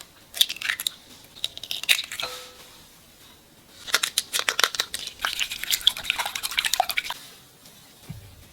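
Crinkling, crackling plastic packaging with sharp clicks, in two spells a second or so apart, as the tofu is handled.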